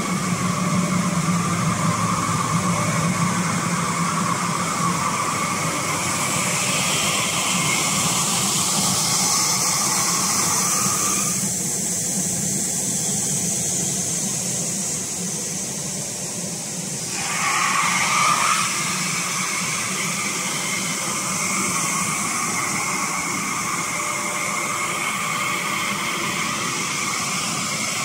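BLUETEK LBQ-2000 vertical glass washing and drying machine running with a steady whirring hiss and hum from its motors, brushes and drying-air fan as a glass sheet passes through. About eleven seconds in, part of the hiss drops away for several seconds, then comes back with a brief louder surge.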